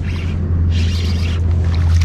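A hooked redfish splashing at the surface beside the boat, two short rushes of water, the second about a second in and the longer, over a steady low hum.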